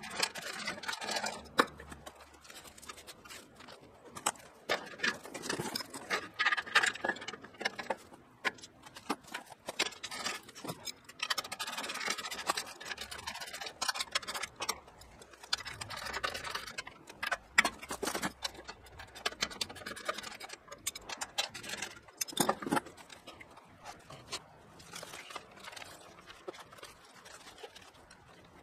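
Hand work on sawmill parts: irregular clicks, light knocks, scraping and rustling as parts, plastic wrapping and paper instruction sheets are handled.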